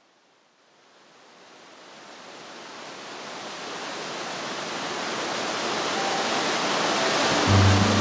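Rushing water of Tahquamenon Falls, fading in from near silence and growing steadily louder. Background music comes in near the end.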